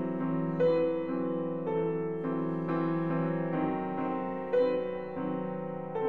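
Background music: a slow keyboard tune of held notes and chords, a new note about every half second to a second, with two stronger notes about half a second in and near the end.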